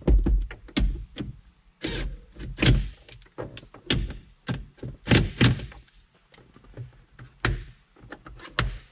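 Irregular knocks, clicks and thunks of hand work on a truck's roof clearance light housing. Strong strikes come right at the start, about two and a half seconds in, and around five seconds in.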